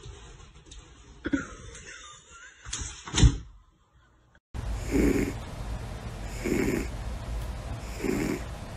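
A thump about three seconds in as a black cat drops from a window ledge. Then a chubby ginger cat asleep on its back snoring, one slow breath about every second and a half.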